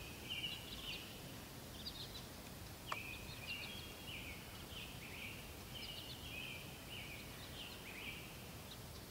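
Songbirds singing in a field, a steady run of short high chirping phrases, with one sharp click about three seconds in.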